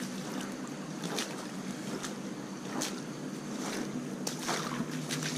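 Shallow creek water running steadily around a gravel bar, with a few footsteps crunching on wet gravel and stones.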